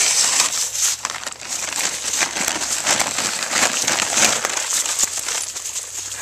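Empty feed sack crinkling and rustling in irregular crackles as a Great Pyrenees dog noses into it and tears at it.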